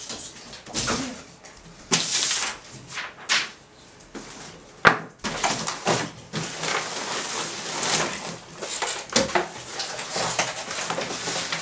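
Cardboard packaging being handled: rustling and scraping of the box and its cardboard insert, with a few sharp knocks, the loudest about five seconds in.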